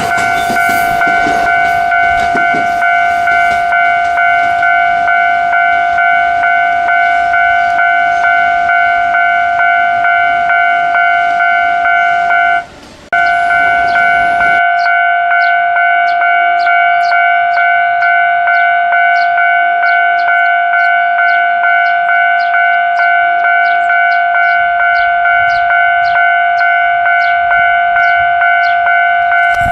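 Japanese railway level crossing's electronic warning bell ringing repeatedly at about two strokes a second. A passing train's running noise lies under it for the first half, then stops abruptly, leaving the bell ringing alone.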